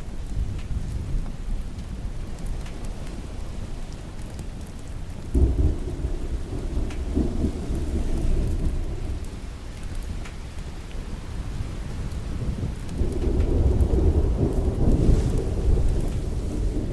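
Steady rain with two long rolls of thunder. The first starts suddenly about five seconds in and dies away over several seconds. The second swells up a few seconds before the end and eases off.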